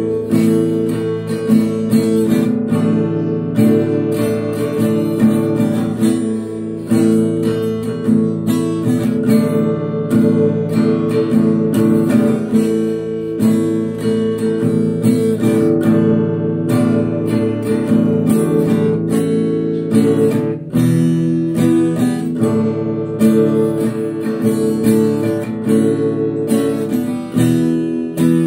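Acoustic guitar strummed steadily, playing the chords of a song in a regular rhythm.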